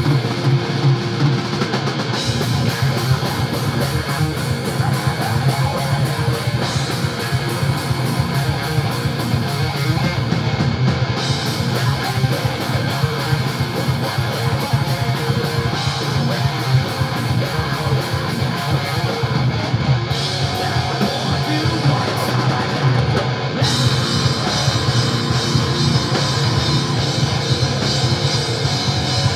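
A live rock band playing loud, heavy music: distorted electric guitars over a drum kit, with a singer on a microphone.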